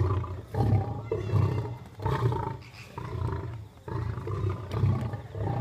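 A male lion and a lioness snarling and growling at each other in a squabble, in a run of loud, deep, rough bursts coming about every half second to a second.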